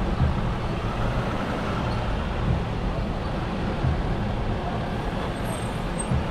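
Steady road traffic noise: a continuous low rumble and hiss of passing vehicles with no single event standing out.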